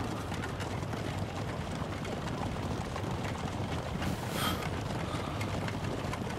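Steady rumble and rattle of a horse-drawn carriage rolling along, with a brief rustle about four seconds in.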